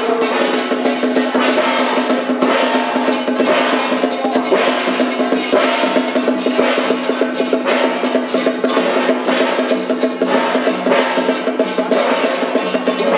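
Temple festival percussion: drums and cymbals beating a fast, dense rhythm, with a steady held tone underneath.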